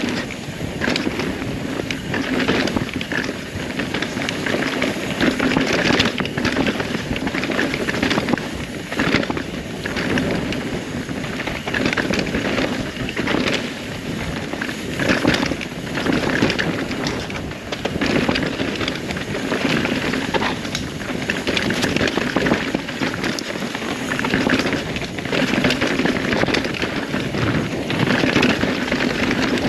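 A 2021 Rocky Mountain Altitude mountain bike riding fast down a dirt trail: steady tyre noise on the dirt, many small knocks and rattles from the bike over bumps, and wind on the microphone, swelling and easing with the terrain.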